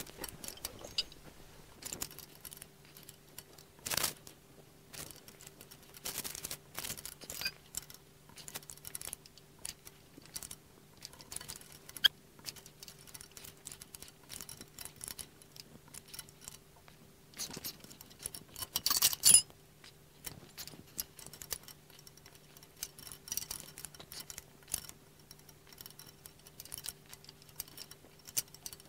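Scattered metallic clicks and clinks of a wrench on steel hydraulic hose fittings as they are tightened down, with a louder clatter about 18 to 19 seconds in.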